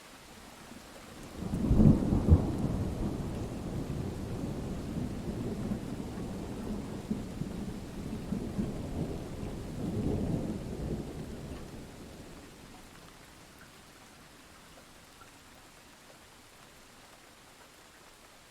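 A thunderclap: a sudden sharp crack about a second and a half in, then a low rumble that rolls on, swells again near ten seconds and fades away by about thirteen seconds, over steady rain.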